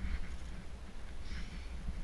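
Wind rumbling and buffeting on the body-mounted camera's microphone, with two brief faint hissing sounds, one near the start and one about a second and a half in.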